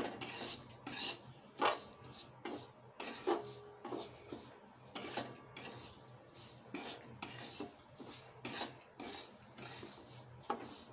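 Metal spatula scraping and stirring semolina being roasted in a metal kadai, with irregular scrapes and knocks about once a second. A steady high-pitched whine sounds underneath.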